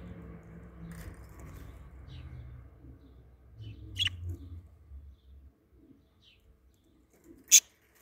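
Budgerigars giving a few short, sharp chirps, the loudest about half a second before the end. A low rumble under the first half fades out.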